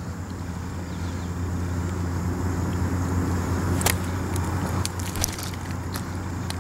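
A steady low motor hum, with a few faint clicks about four and five seconds in.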